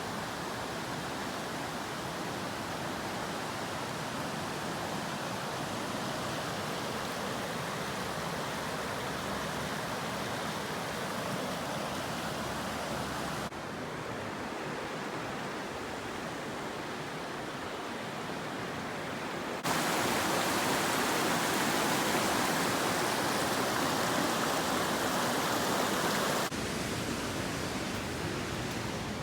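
Steady rushing noise. It drops slightly a little under halfway through, grows louder about two-thirds in for several seconds, then drops back near the end, each change abrupt.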